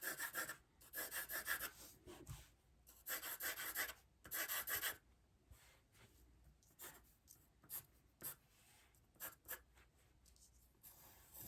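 Drawing strokes scratching across sketchpad paper: several runs of rapid back-and-forth shading strokes in the first half, then shorter single strokes.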